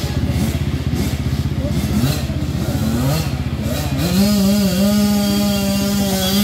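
Dirt bike engines running with a fast steady pulse, with a few short rises in pitch. About four seconds in, one engine is revved up and held at a steady high pitch.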